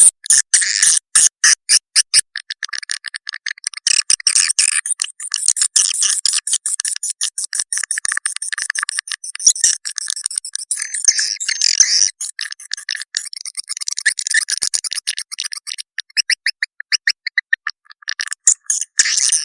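Swiftlet lure call: a recording of edible-nest swiftlets twittering and chirping in fast runs, used to draw swiftlets into a nest house. The chirps come in quick rattling bursts, all high-pitched with no low sound, and pause briefly twice near the end.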